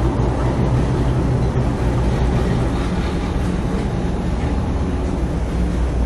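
Steady low drone with a rushing hiss, heard inside a container ship's bridge as the ship runs through heavy storm seas.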